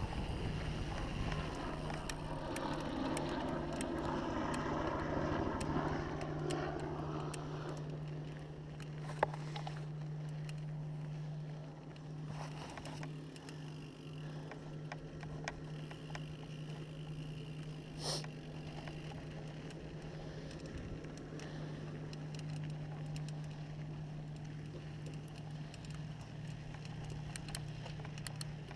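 Mountain bike rolling fast down a dirt and gravel trail: rough tyre noise and scattered rattling clicks from the bike over a steady low hum, with one brief high squeal about eighteen seconds in.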